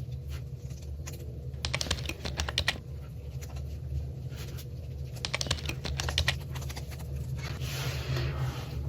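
Fingertips patting toner into facial skin: bursts of quick light taps over a steady low hum.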